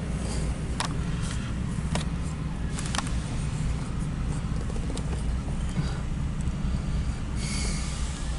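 Steady low engine rumble heard from inside a car cabin, with a few sharp clicks and a short hiss near the end.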